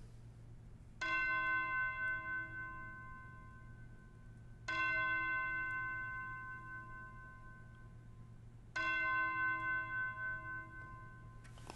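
A bell struck three times, about four seconds apart, each ring sounding clear and fading slowly.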